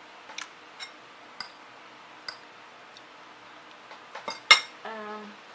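Eating utensil clinking against a dish: a few light, scattered clicks, then a quick cluster ending in one loud sharp clack about four and a half seconds in.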